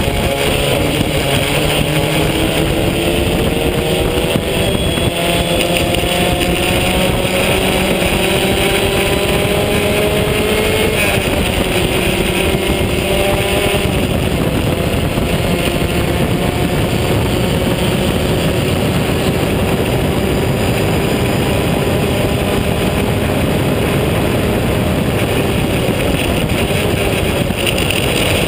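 Onboard sound of a vintage open-wheel race car's engine under way at racing speed, its pitch climbing and dropping sharply twice, about 11 and 14 seconds in, as it shifts up, then running at a steadier, slowly rising pitch. Steady wind rush on the open-cockpit camera underlies it.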